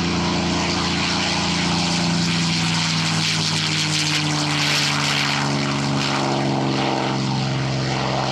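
Piston engines of a propeller-driven WWII warbird droning steadily as it flies past. Their pitch drops a little partway through as it goes by.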